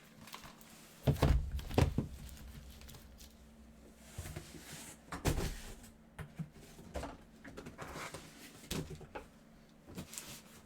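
Cardboard boxes of trading cards being handled and set down on a table: a scatter of dull knocks and thuds, the loudest a pair about one and two seconds in, with another about five seconds in.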